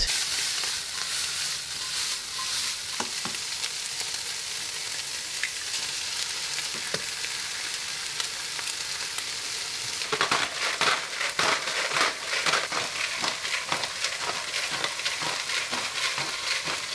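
Eggs and chopped chicken frying in a nonstick pan over a gas burner: a steady sizzle. About ten seconds in, the sizzle turns to a busier crackle and spitting after fresh eggs are cracked into the hot pan.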